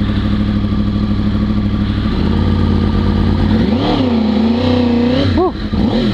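Race-spec 2011 Yamaha R1's crossplane inline-four through a K-Factory titanium exhaust, idling steadily and then revving up and down as the bike pulls away, with a quick sharp blip of the throttle near the end.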